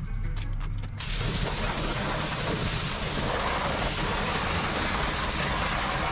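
Pressure-washer spray hitting a car's alloy wheel and tyre: a steady hiss of water that starts suddenly about a second in, rinsing off the wheel cleaner.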